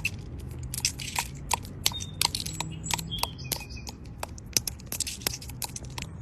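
Crisp crunching and crackling: a quick, irregular run of sharp clicks, thickest at the start and thinning out toward the end, over a low steady hum.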